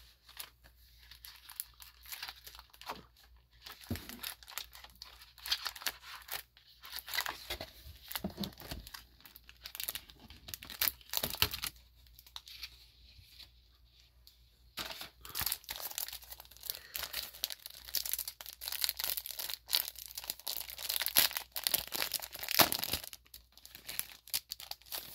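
Paperboard box lids and inserts being handled: irregular rustling, scraping and tapping of stiff card, busier and louder in the second half.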